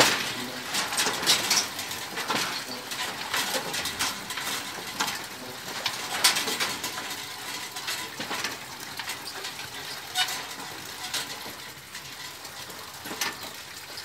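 Windmill creaking and clanking as it turns: irregular knocks and clinks over a steady hiss, growing sparser and quieter toward the end.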